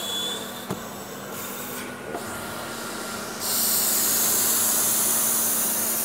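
Thermofonte steam-and-vacuum cleaner running, its window nozzle working over the glass with a steady motor hum, a few small clicks and rubbing; about three and a half seconds in a loud hiss starts suddenly and holds, easing off near the end.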